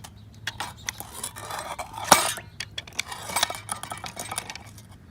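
Repeated metal clinks and scraping, with one sharper knock about two seconds in. A metal tool is knocking and scraping oil-bonded casting sand (Petrobond) off a freshly cast silver ball.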